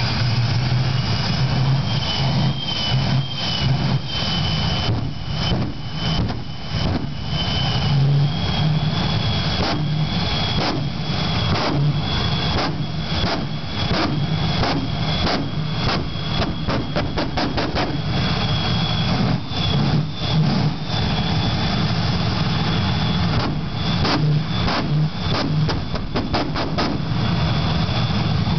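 Jet truck's jet engine running with a loud rush and a steady high-pitched whine, the whine stepping up slightly in pitch about eight seconds in.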